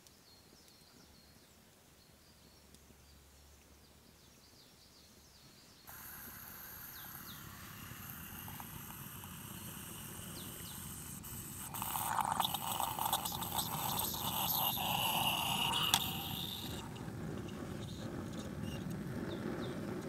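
Coffee poured from a Bialetti moka pot into an enamel mug: a stream of liquid splashing into the cup, loudest for a few seconds around the middle. Faint bird chirps sound in the quiet first few seconds.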